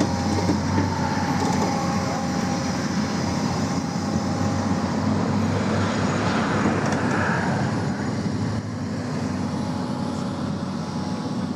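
Hyundai excavator's diesel engine running steadily with a faint hydraulic whine, easing slightly about eight and a half seconds in.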